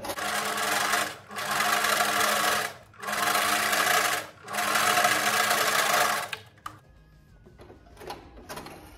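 Singer Simple electric sewing machine stitching a strip of piping in four short runs with brief pauses between them, stopping after about six seconds.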